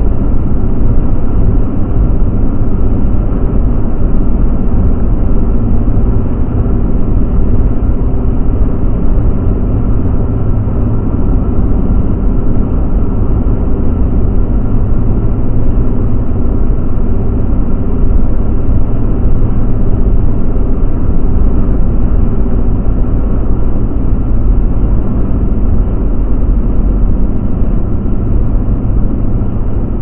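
Steady driving noise inside a car's cabin: a constant low engine hum over road rumble from the tyres, unchanging throughout.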